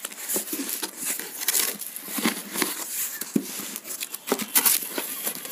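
Cardboard box being opened by hand: the flaps scrape and rustle against the polystyrene packing, with irregular knocks and taps.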